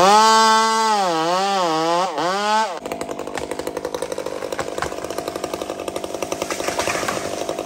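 Chainsaw with a test exhaust muffler revving hard, its pitch climbing and then wavering up and down. About three seconds in the sound changes abruptly to a lower, steadier run with a fast flutter.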